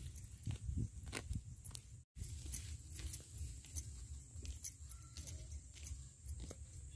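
Soft, scattered crackling and rustling as a dead chicken is plucked by hand on a bed of dry fallen leaves: feathers pulled out and dry leaves shifting under the hands.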